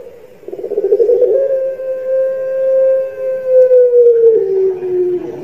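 Caged ringneck dove giving one long coo: a rough rolling start about half a second in, then a held, steady note for about three seconds that slowly sinks in pitch toward the end.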